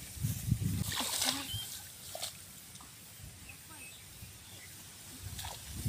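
Footsteps on a grassy field path and rustling of grass and rice stalks as someone walks and crouches in the grass. The thuds and a short swish fall in the first second or two; it is quieter after that.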